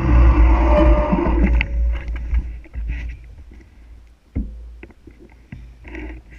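Wind buffeting the microphone and the rush of a mountain bike descending fast, dying away over the first two seconds as the bike slows. Then quieter, with scattered clicks and knocks.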